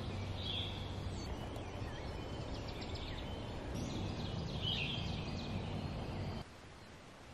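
Songbirds chirping and trilling over a steady low outdoor rumble; the sound cuts off suddenly about six seconds in.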